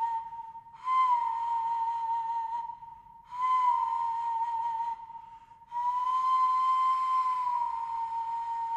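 Breathy taonga pūoro (traditional Māori) flute playing three long phrases on one high note, each opening with a slight upward bend. A quieter held tone carries on through the short gaps between them.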